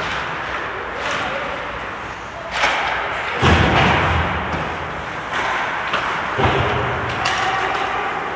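Ice hockey rink during play: ongoing game noise from skates and sticks, broken by heavy thuds about three and a half and six and a half seconds in, with a sharper knock just before the first.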